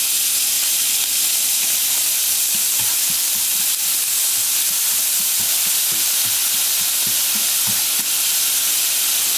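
Minced lemongrass and scallion whites sizzling in hot oil in a nonstick frying pan, a steady hiss, while a wooden utensil stirs them with light taps against the pan through the middle.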